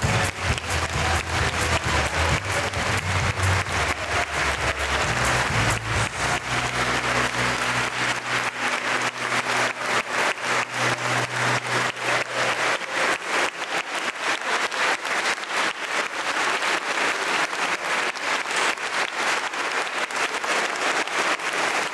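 Audience applauding in a large church, dense steady clapping throughout. A low held tone underneath fades out a little past halfway.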